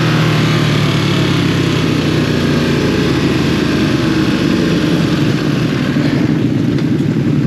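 Ducati Streetfighter V2's 955 cc twin-cylinder engine running at low revs, heard from the bike itself, with wind and road noise fading over the first few seconds as the bike slows.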